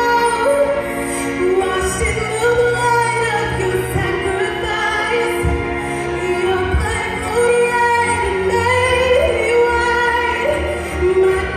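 A woman singing a contemporary Christian ballad into a microphone over instrumental accompaniment, with long held notes that bend and slide in pitch.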